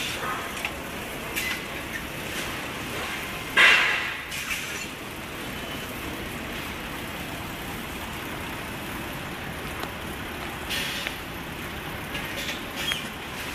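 ADPRO automatic bag filling and weighing machine running, a steady mechanical noise with several short, sharp bursts. The loudest burst comes about three and a half seconds in and trails off over about a second; smaller ones come near the end.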